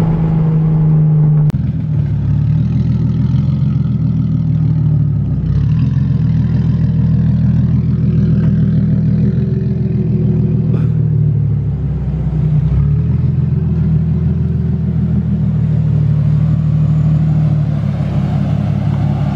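Turbocharged Lexus IS300 inline-six engine running while the car is driven, a steady drone that shifts slightly in pitch about five seconds in and again about thirteen seconds in.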